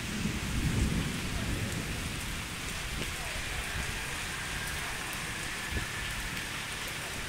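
Steady heavy rain falling on a wet concrete pier. A low rumble of thunder fades away over the first two seconds.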